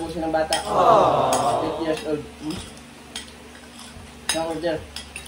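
Spoons and forks clinking and scraping on plates and bowls as several people eat, with a louder burst of noise about a second in and a few short snatches of voice.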